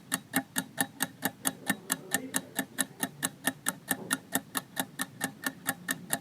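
Countdown clock sound effect: rapid, even ticking, several ticks a second, timing the pause given to answer a quiz question.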